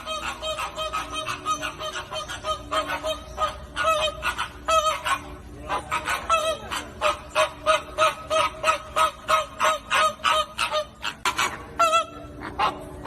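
A flock of flamingos honking: a dense, continuous run of short, nasal calls, several a second and overlapping one another.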